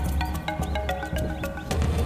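Background soundtrack music: a sustained low bass under short, quick melodic notes and light percussive ticks.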